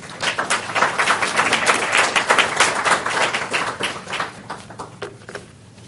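Audience applauding. The clapping builds quickly, is densest for the first few seconds, then thins out to a few last scattered claps and stops.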